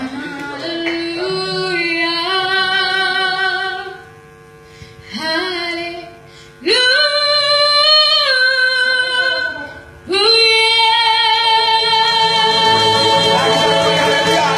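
A boy sings into a microphone in a high voice, sliding up into long held notes three times, with an ensemble of wooden xylophones played with mallets accompanying him.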